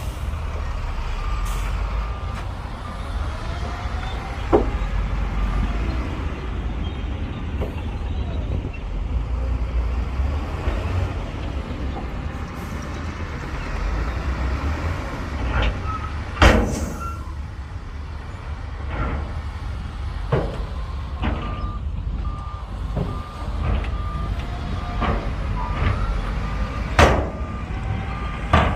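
Heavy diesel earthmoving machinery running with a steady low rumble. A reversing alarm beeps in an even row at the start and again through the last third, and sharp metal clanks sound several times, loudest about halfway through.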